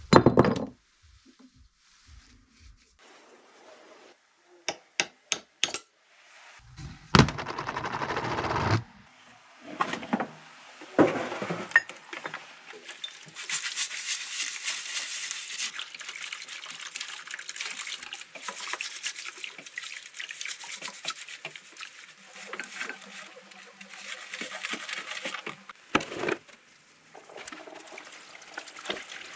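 Metal air-motor parts of a pneumatic impact wrench clinking on a workbench. About halfway in, cleaning fluid starts to run and splash steadily while the parts are scrubbed with a brush in a parts-washer tub.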